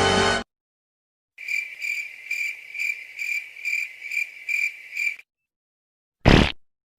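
Cricket chirping in even pulses, a little over two a second, for about four seconds. After a pause comes one short, loud burst of noise. A music clip cuts off abruptly at the very start.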